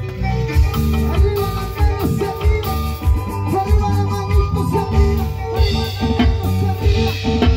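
Live band music with a steady dance beat: harp, electric bass and drum kit with cymbals playing together.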